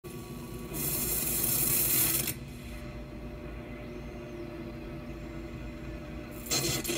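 VCR playing back a videotape: a loud burst of static hiss about a second in, then a steady low hum and mechanical whir, with another burst of static near the end.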